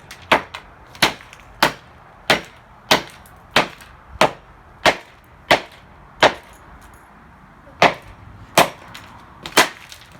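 Repeated sharp blows on the hard plastic of a Dreamsky DS206 alarm clock radio as it is smashed, about one and a half strikes a second, with a short pause just past the middle.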